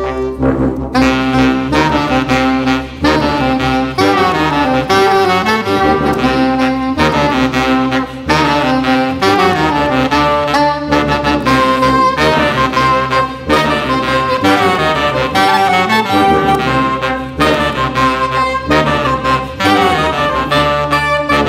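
Live acoustic jazz ensemble of soprano saxophone, clarinet, trombone and tuba playing a busy interwoven passage of quick notes over a steady low bass line.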